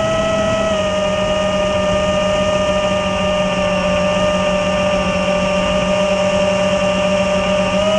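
Brushless motors and propellers of an iFlight BattleAxe 5-inch FPV quadcopter (2307 2400kv motors) whining steadily in flight, picked up by the drone's onboard camera. The pitch drops a little about a second in, holds, then rises again near the end as the throttle changes.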